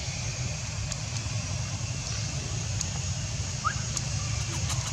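Steady outdoor background noise: a constant low rumble with an even high hiss over it, a few faint clicks, and one short rising chirp about three-quarters of the way through.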